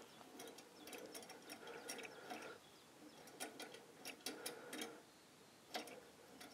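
Faint, quick clicking from the carburettor tickler on a 1937 Scott motorcycle being pressed over and over to flood the float bowl with petrol before a first start. The taps come in two runs, with one sharper click near the end.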